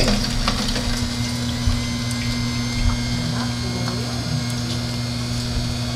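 Philips masticating slow juicer running, its motor giving a steady low hum as the auger presses carrots, with a few faint clicks.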